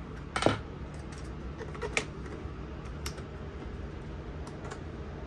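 Sheet-metal parts of an all-in-one PC's chassis clicking and clattering as a metal shield plate is handled and set into place, with the loudest knocks about half a second in and about two seconds in, over a steady low hum.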